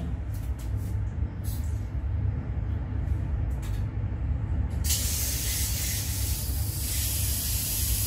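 Water comes on through a new handheld shower head about five seconds in, starting suddenly and going on as a steady hiss of spray. Before that there are only a few light clicks over a low, steady rumble.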